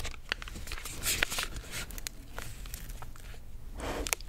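Plastic pudding-cup four-pack being picked up and handled: a string of short sharp plastic clicks and taps with light crinkling.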